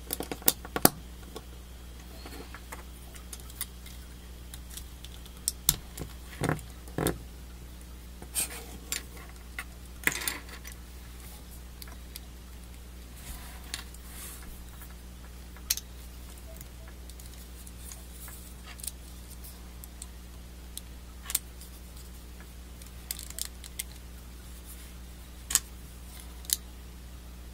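Hard plastic model-kit parts of a Gundam leg clicking and snapping as they are handled and pressed together: scattered light clicks with a few louder snaps, a cluster right at the start and another a few seconds in. A steady low hum runs underneath.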